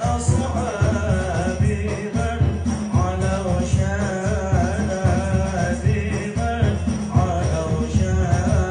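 A man singing sholawat, a devotional Islamic praise song, into a microphone, his voice carrying a slow, ornamented melodic line. Beneath it runs a steady beat of hand-drum thumps with jingles.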